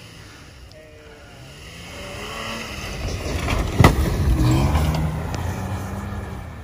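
Toyota Tacoma pickup's engine revving hard as it ploughs through deep snow past, tyres churning snow; the engine note rises and falls, growing loud as it comes close and fading as it pulls away. A single sharp crack sounds near the loudest point, about four seconds in.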